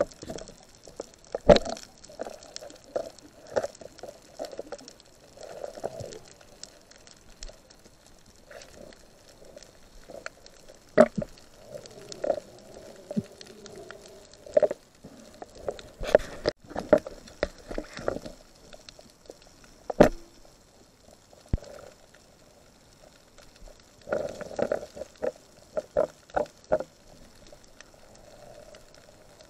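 Muffled underwater sound through a submerged camera: irregular sharp knocks and clicks, a cluster of them near the end, with water swishing and gurgling between them.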